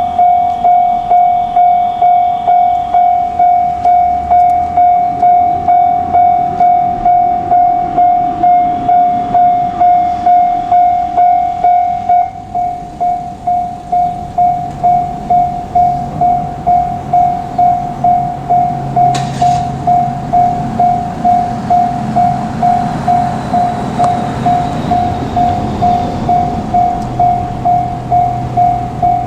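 Japanese railway level-crossing warning bell ringing, a repeating ding about one and a half times a second, its sound thinning out about twelve seconds in. JR Kyushu 817 series electric trains pass the crossing, their running hum and rumble building from about halfway through.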